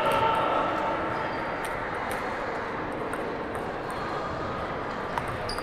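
Steady background noise of a large sports hall, with faint, scattered sharp clicks of table tennis balls striking tables and paddles.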